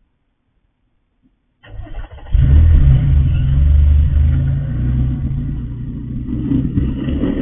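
Toyota Highlander SUV's engine starting about two seconds in, then running hard as the SUV backs out and pulls away, easing off slightly near the end. Heard through a security camera's microphone.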